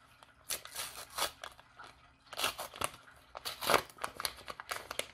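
A Pokémon trading-card pack's crinkly wrapper being torn open and crumpled by hand, in several short irregular rustling bursts, loudest a little past the middle.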